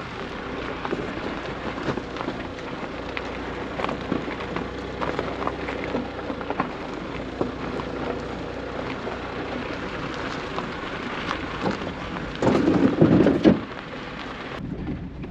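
Tyres of a 2014 Smart car crunching and popping over gravel and loose rocks as it creeps along a rough dirt track. There is a steady crackle of small stones, with a louder, rougher rumble for about a second near the end.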